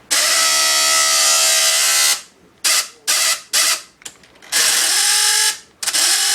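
Small geared electric motor, like a power tool's, whirring in on-off runs: a steady whine for about two seconds, then a few short spurts and another run of about a second.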